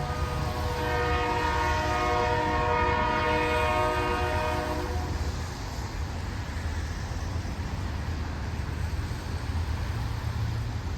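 Train horn sounding one long chord of several notes, cutting off about five seconds in, over the steady low rumble of the train running past.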